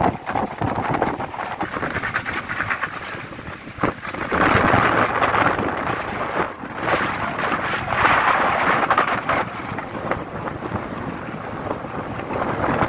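Thunderstorm wind gusting hard across the microphone, a dense rushing roar that swells and eases in gusts, strongest about four, eight and twelve seconds in.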